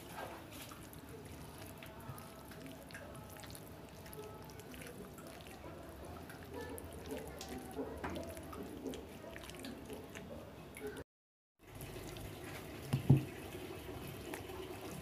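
Hand squishing and mixing mutton pieces in a wet yogurt-and-egg spice marinade with grated raw papaya in a glass bowl: faint, soft wet squelching. The sound drops out briefly a little past the middle, and a couple of louder knocks come near the end.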